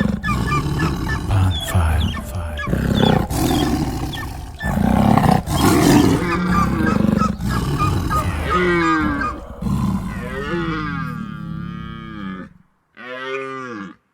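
Wild-animal sound effects: big-cat roars and growls, loud and continuous for most of the time, then in the last few seconds pitched, wavering animal calls that rise and fall, broken by short silences.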